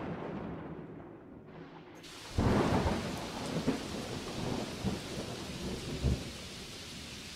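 Rain hiss with a sudden loud crack of thunder about two seconds in, rumbling on in a few swells before easing off.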